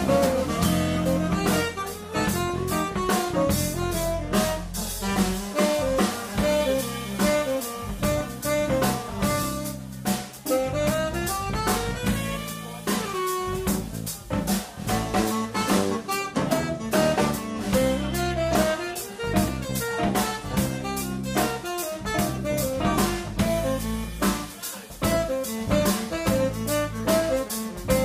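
Live instrumental jazz band: a tenor saxophone plays a moving melody line over drum kit, electric bass and electric guitar.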